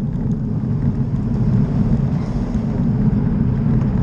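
Steady low rumble of wind buffeting the microphone and tyre noise on tarmac from a bicycle being ridden along a road.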